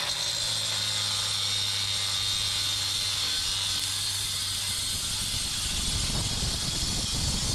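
Handheld cutoff tool with an abrasive disc cutting through the steel tube of a shopping cart's frame to take the wheels off: a steady high grinding hiss, turning rougher and heavier in the last couple of seconds.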